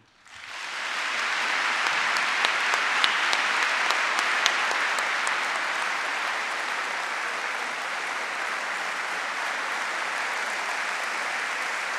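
Large audience applauding, swelling up within the first second or so and then holding steady, easing off slightly in the second half.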